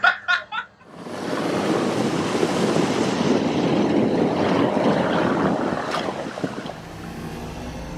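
A Sherp amphibious ATV's big low-pressure tyres churning through icy slush and water: a loud splashing rush that starts about a second in and eases off near the end. The vehicle's engine runs underneath as the splashing dies down.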